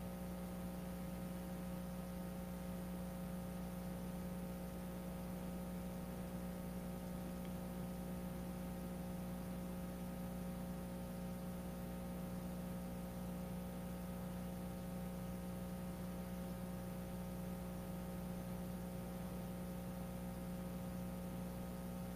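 Steady electrical mains hum, a low, unchanging buzz with no other sound over it.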